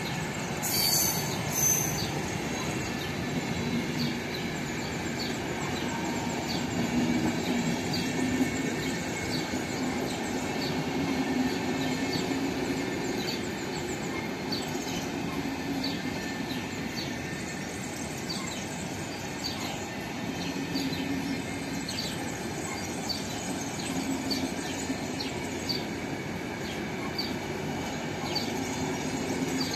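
RegioJet passenger coaches rolling past with a steady rumble of wheels on rails. A brief high squeal comes about a second in, and short high squeaks repeat roughly once a second.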